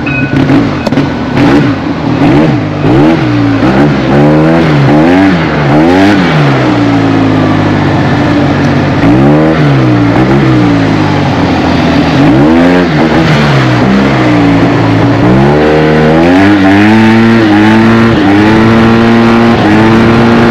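Yamaha TMAX maxi-scooter's parallel-twin engine heard from the rider's seat, blipped up and down in quick revs a few seconds in, then accelerating several times, its pitch climbing and then holding steady, over wind and road noise.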